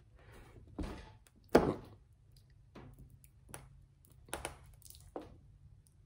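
A string tire plug being forced into a mower tire's sidewall with a T-handle plug insertion tool. It makes a series of short, dull thunks and knocks: the two loudest come about a second and a second and a half in, then fainter ones follow.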